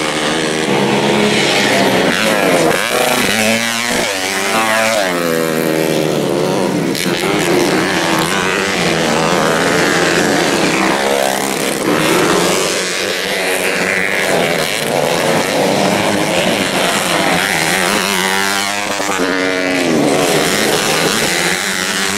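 Several modified underbone race motorcycles, a mix of two-stroke 116cc and four-stroke 125cc machines, running loud at high revs. Their pitch rises and falls as they accelerate, shift and pass, most plainly twice.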